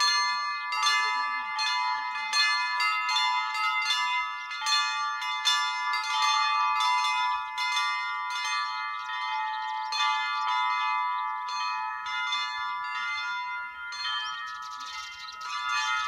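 Orthodox church bells being rung: small bells struck in a quick rhythmic pattern, about two to three strikes a second, over a steady ringing chord from the larger bells.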